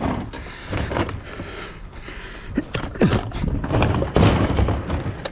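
A run of irregular knocks, clunks and scrapes, loudest about three to four and a half seconds in, from scrap appliances and gear being handled and secured on a load.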